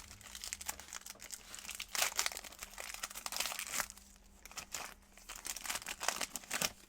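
Crinkling and rustling of trading-card pack wrappers and cards being handled, in a series of short bursts. The busiest stretches come about two seconds in and again near the end.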